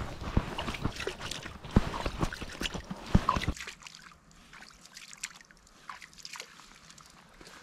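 Shallow river water sloshing and splashing, with sharp knocks and clicks from hands working in it, as a caught chub is released. About three and a half seconds in it cuts to a much quieter outdoor background with a few faint ticks.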